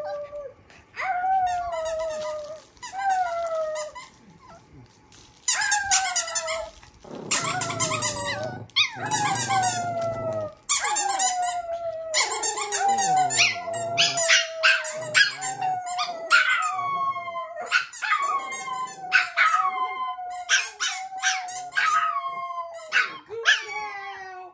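Two small dogs, an orange Pomeranian and a puppy, howling together. The howls are a long run of drawn-out calls that slide down in pitch, and they break into shorter, falling yowls about once a second in the second half.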